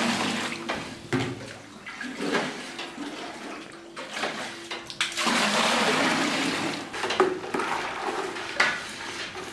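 Water pouring from a plastic bucket into a plastic bucket of salt and splashing as brine is made up, with a second long rush of water about five seconds in, then a hand stirring and splashing the salt water to dissolve the salt.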